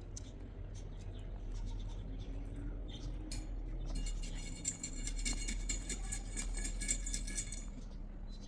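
Rapid, rhythmic scraping of a hand tool working wet white cement and plaster over a coop wall. It starts about four seconds in and runs for roughly three and a half seconds, after a few scattered small scrapes.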